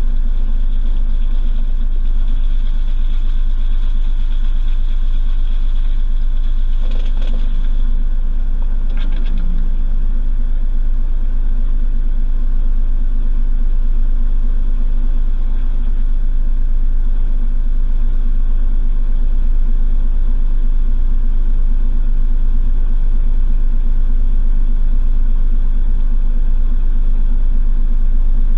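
Washing machine running steadily, heard from inside its drum: a loud, constant low hum and rumble, with two brief rattles about seven and nine seconds in.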